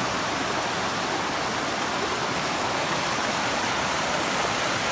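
Stream water rushing over rocks in a small jungle waterfall cascade: a steady, even rush of whitewater.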